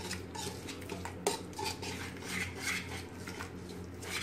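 A wire whisk scraping and clinking against an aluminium pot in repeated stirring strokes as it mixes a thick spice-and-yogurt marinade. There is one sharper clink about a second in.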